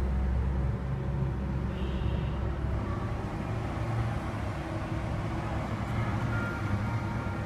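Steady low background rumble with a light hiss above it, even throughout with no distinct events.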